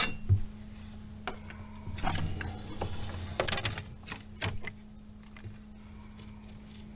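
Scattered light clicks and knocks from gear being handled, most of them in the first five seconds, over a faint steady hum.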